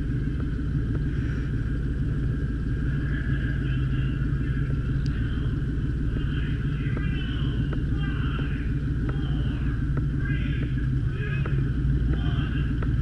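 A 2003 Ford Taurus race car's V6 engine running steadily without revving, heard from inside the car's cabin.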